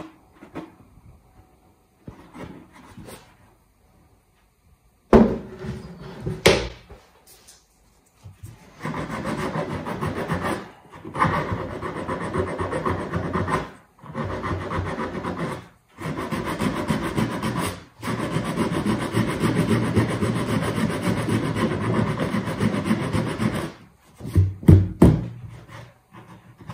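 Sandpaper scrubbing back and forth over a melted cable-tie plastic weld on a cracked plastic bucket, smoothing the seam. It comes in long runs of rapid rubbing with short pauses between them. A few sharp knocks come before the sanding, and more come near the end.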